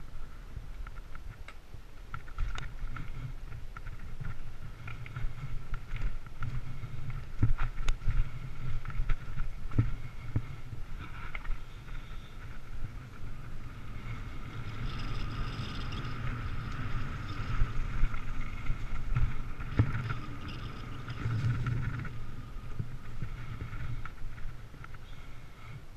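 Mountain bike riding over a rough dirt trail: a steady low rumble of wind and tyres with scattered knocks and rattles from the bike, busier from about halfway through.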